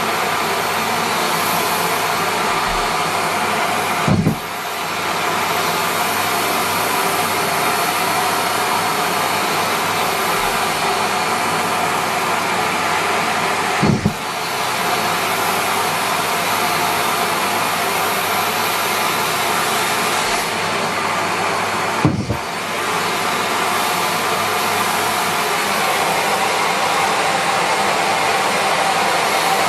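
Miele Complete C3 canister vacuum cleaner running steadily while sucking up socks. Three brief knocks come through, each followed by a short dip in the motor's sound before it recovers.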